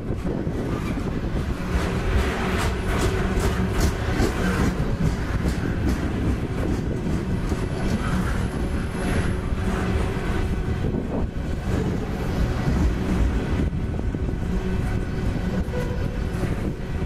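Long freight train of container flatcars rolling past at close range: a steady rumble of steel wheels on the rails, with scattered clacks.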